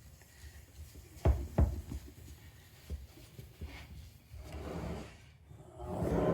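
Two sharp knocks a little over a second in, then a few lighter taps, from a plastic headlight assembly being handled on a work surface during hand polishing.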